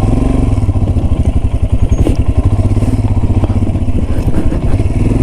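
Royal Enfield Himalayan's single-cylinder engine running under way with a steady, even beat of firing pulses. A couple of short knocks come about two and three and a half seconds in.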